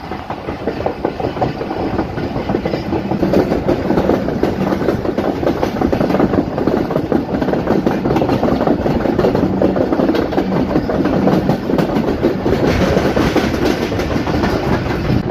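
Passenger train running along the track, its wheels clattering continuously over the rails, growing a little louder over the first few seconds and then holding steady.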